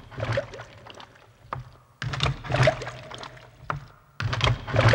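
Water splashing in three main bursts about two seconds apart, as if thrown or poured in quick dashes, with smaller splashes and drips between.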